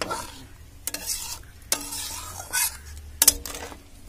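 Metal spatula stirring prawn curry in a metal kadai, scraping the pan about four times, the last stroke the loudest. The thin gravy is simmering.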